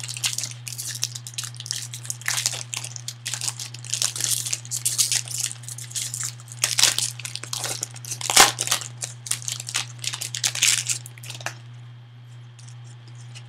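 Foil trading-card pack wrapper being torn open and crinkled by hand, a dense run of crackles that stops about eleven seconds in. A steady low hum sits underneath.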